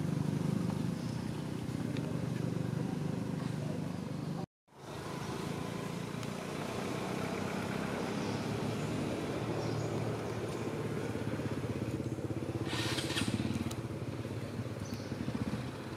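Steady low drone of motorcycle engines running, with outdoor ambience. The sound drops out abruptly for a moment about four and a half seconds in, and a brief sharper noise comes near the end.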